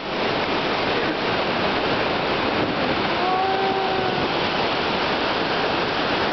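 Steady roar of Iguazu Falls heard close up from the walkway at the brink, a dense unbroken rush of plunging water and spray.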